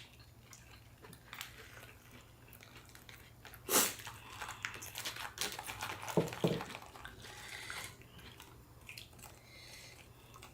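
Close-up chewing and biting of fresh spring rolls: soft rice paper with crisp lettuce, cucumber and bean sprouts, with a sharp crunch about four seconds in and a busier stretch of wet crunching after it.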